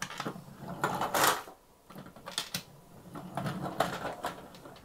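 Plastic toy train engine and figure being handled and pushed along: a string of hard-plastic clicks, knocks and rattles, with a louder scraping rush about a second in.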